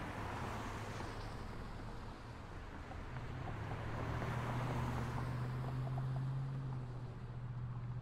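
Street traffic: vehicles passing with a rising and fading rush of tyre and engine noise. A steady low engine hum sets in about three seconds in.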